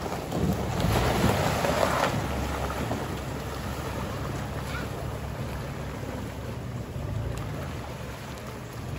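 Toyota 4Runner SUV driving off gravel into a shallow creek: water splashing around the tyres, loudest in the first couple of seconds, then a steadier swish of water over the engine's low hum as it wades on.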